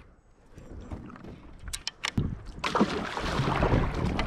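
Kayak paddle strokes dipping and splashing in the water, growing louder in the second half, with a few sharp clicks of the paddle about two seconds in.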